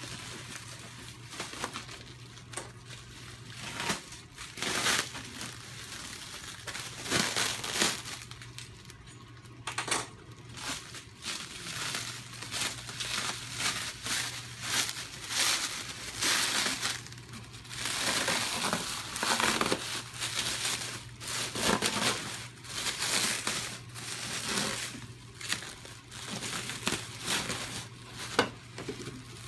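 Clear plastic wrap and bubble wrap being pulled off and bunched up by hand: irregular crinkling and crumpling rustles that come and go, with a faint steady low hum underneath.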